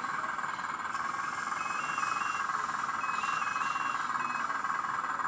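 The small electric oil pump of a 1/14-scale RC hydraulic excavator runs with a steady whirr. Faint stepped whines come from the valve servos twice, as the boom and arm are moved.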